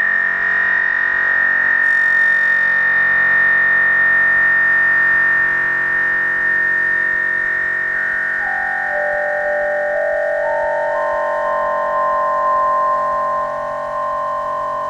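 Karplus-Strong plucked-string synthesis: synthetic, string-like tones rich in overtones that ring on for many seconds and fade only slowly. About eight seconds in, new notes at different pitches start entering one after another, several more by the end.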